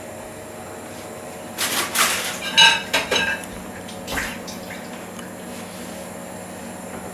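A metal spoon scraping and clinking against a roasting pan while pan juices are spooned over roast pheasants. There are a few sharp clatters between about one and a half and four seconds in, the loudest a short ringing clink, over a steady low hum.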